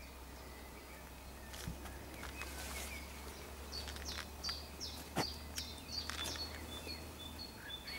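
Small birds chirping faintly in short, repeated high notes, more often in the second half, over a low steady hum, with a few soft clicks.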